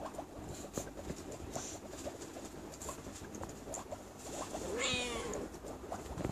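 A kitten meows once, a short call about five seconds in, over faint rustling and ticking from the kitten being handled.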